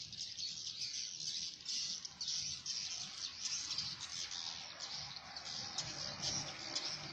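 Swiftlets twittering: a dense, unbroken chatter of many short, high chirps, with a faint low hum underneath.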